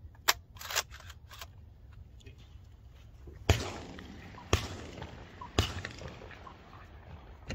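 A few sharp metallic clicks of a shotgun's action being worked, then three shotgun shots about a second apart, each trailing off in a short echo.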